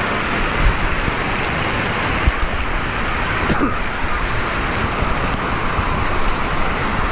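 Indoor water park ambience: a steady rush of running and falling water.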